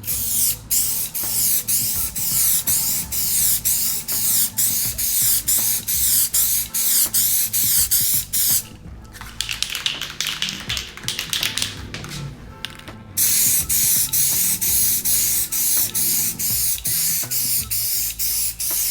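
Aerosol can of Dupli-Color Custom Wrap rubber-coating paint spraying, a loud hiss broken into quick repeated bursts with a short break about nine seconds in, as a coat goes onto small emblems.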